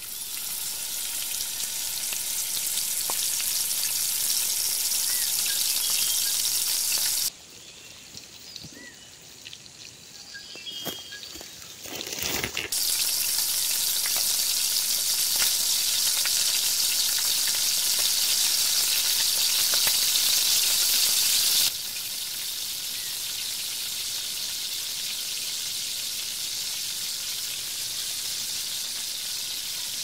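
Food frying in a pan: a steady, high sizzling hiss. The hiss drops away abruptly about seven seconds in, with a few knocks just before it comes back loud at about thirteen seconds, then it settles a little lower after about twenty-two seconds.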